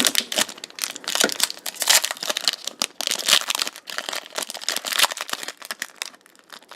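Foil wrapper of a Pokémon TCG Steam Siege booster pack crinkling and crackling as it is handled and torn open, quieter near the end.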